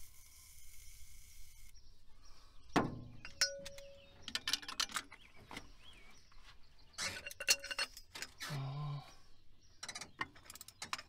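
Aerosol can of penetrating lube spraying in a short hiss of under two seconds, then metal clinks and clicks of a wrench being fitted to and worked on a seized spark plug in a Ford 300 inline-six's head.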